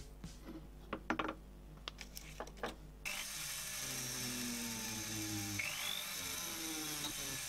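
A pointed steel hand tool clicking and scraping against a silver ring as dents and scratches are marked into it. About three seconds in, a rotary tool starts suddenly and runs steadily, its bur cutting into the silver, the motor's pitch shifting slightly as it works.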